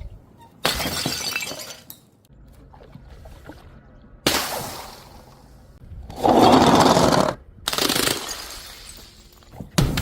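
Glass bottles smashing, several separate breaks a second or more apart, each a sudden crash followed by a spray of shards.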